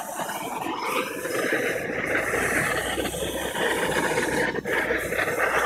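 Propane torch with a Searzall diffuser attachment burning, a steady rushing hiss of gas flame, with a low rumble joining about halfway in.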